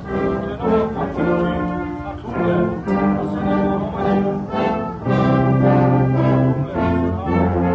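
Corps brass band playing together in held chords, with a long low bass note about five seconds in.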